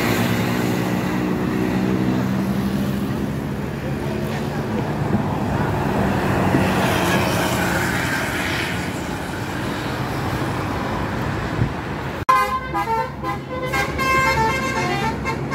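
Road noise with a low droning tone that fades out over the first few seconds. After a sudden cut about twelve seconds in, a bus's multi-tone telolet horn plays a quick tune of short notes at changing pitches.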